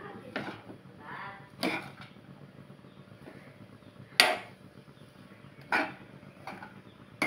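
Steel spatula stirring fried rice in a nonstick frying pan, scraping through the rice with several sharp knocks against the pan, the loudest about four seconds in.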